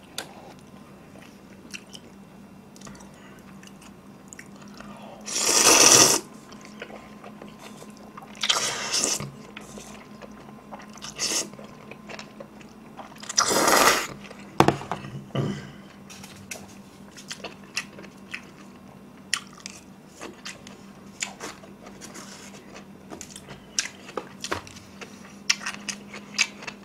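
A person eating stir-fried black bean noodles close to the microphone: three loud slurps, about five, eight and a half and thirteen seconds in, with chewing and small wet clicks of the mouth between them.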